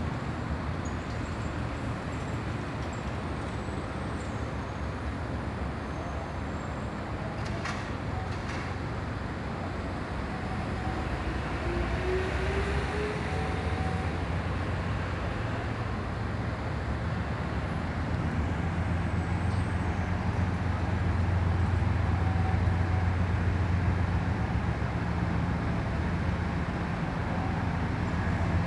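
Class 26 diesel-electric locomotive hauling a loaded cement freight train, approaching slowly with its engine's low steady drone. The drone grows louder as it nears.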